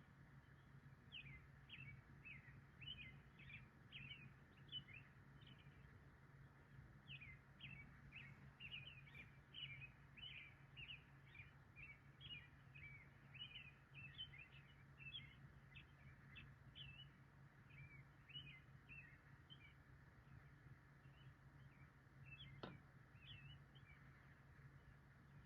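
Faint chirping from birds, many short calls in quick succession, over a steady low hum. About 23 seconds in, one quick upward-sweeping whistle.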